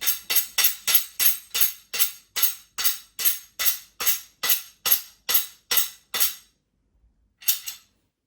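Rapid, evenly spaced tapping with a bright metallic ring, about two and a half strikes a second, as the end bung is knocked into the end of a metal hanging rail. The strikes pause for about a second near the end, then start again.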